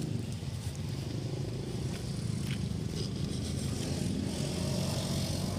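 A motor vehicle's engine running, a low steady rumble, with a slight rise in pitch near the end.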